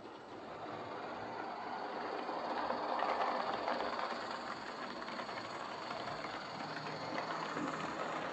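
Lima Class 31 OO gauge model diesel locomotive running on the layout track: its electric motor whirs and the wheels click over the rails. It grows louder over the first three seconds or so, then runs on steadily.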